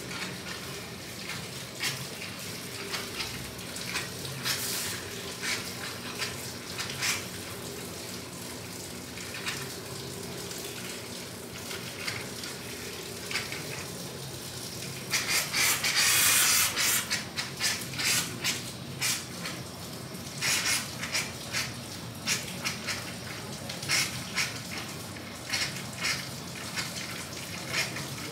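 Water running, as from a tap, with irregular splashes and clicks; a louder rush about fifteen seconds in lasts about two seconds.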